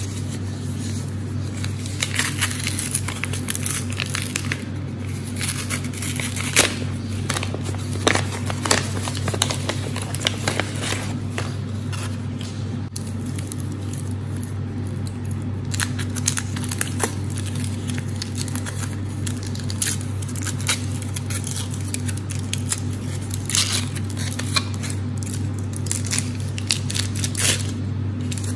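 Hands unwrapping a ruby chocolate bar: the paper sleeve rustling as it slides off, then the gold foil wrapper crinkling and tearing as it is peeled open, in many quick crackles. A steady low hum runs underneath.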